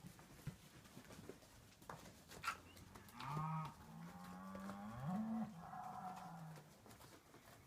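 A calf bawling: one long moo of about three and a half seconds that rises in pitch partway through, after a few light hoof knocks.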